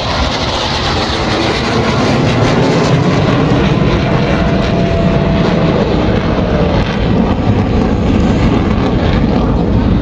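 Military aircraft flying over, a loud continuous rushing engine noise with a faint thin whine that dips slightly in pitch partway through.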